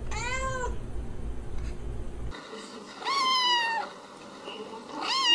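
A cat gives one short meow, then a kitten gives two higher-pitched meows, the second near the end.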